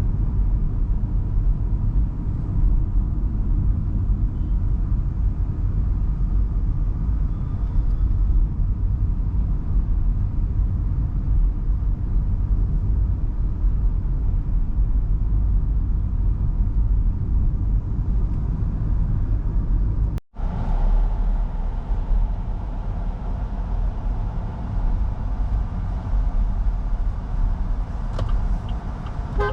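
MG Hector Plus 1.5-litre turbo-petrol SUV driving, a steady low rumble of engine and road noise. It cuts out for an instant about two-thirds of the way through, and a light regular ticking starts near the end.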